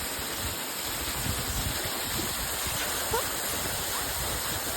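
Waterfall rushing at close range: a steady hiss of falling water, with low rumbling on the microphone between about one and three seconds in.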